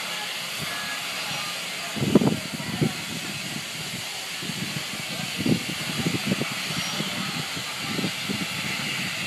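Steady hiss of steam from a Bulleid West Country class steam locomotive, with intermittent nearby voices from about two seconds in.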